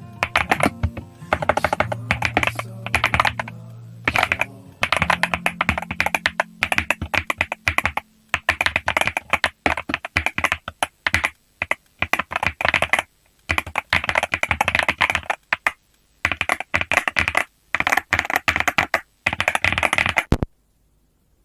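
Typing on a BOYI GMK67 gasket-mount mechanical keyboard: bursts of rapid keystroke clicks with short pauses between them, stopping suddenly near the end.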